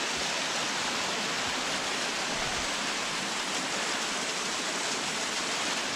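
Water rushing steadily down a waterfall.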